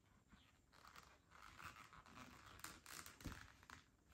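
Faint rustling of chunky T-shirt yarn being handled and pulled through crochet loops, with a soft thump about three seconds in.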